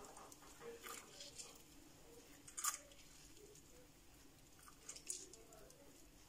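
A lemon squeezed by hand over a pan of diced apples: a few short, faint squelches as the juice is pressed out and drips into the pan, the clearest two near the middle and the end.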